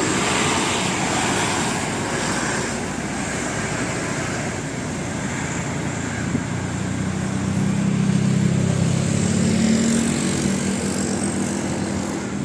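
Road traffic with a large bus's diesel engine passing. The engine's low hum grows louder about halfway through and rises slightly in pitch near the end.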